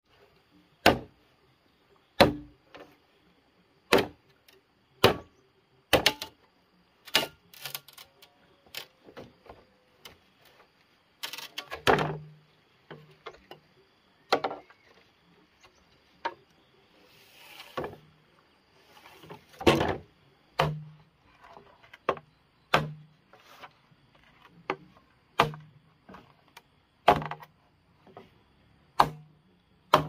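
A hand tool striking again and again in a chopping rhythm, roughly once every second or so. Many of the blows end in a dull low thud.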